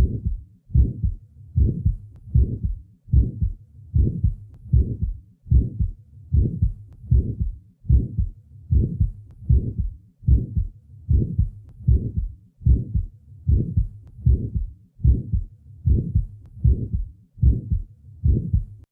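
Heart sounds heard at the left lateral sternal border: a regular heartbeat of about 75 a minute, each first heart sound followed by an early systolic murmur that softens or stops by mid-systole. This is the murmur of a small muscular ventricular septal defect, which seals shut as the ventricle shrinks during ejection.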